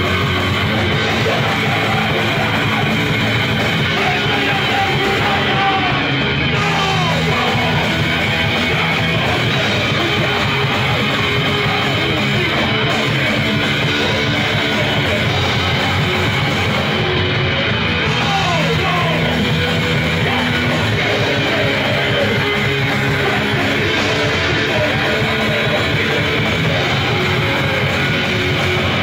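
A rock band playing live, loud and without a break: electric guitar over a dense band sound.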